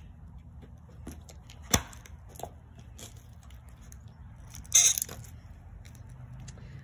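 A hatchet wedged in a split firewood log being worked free by hand: a sharp wooden knock a little under two seconds in, then a short scraping rasp of the blade shifting in the wood a little before five seconds in.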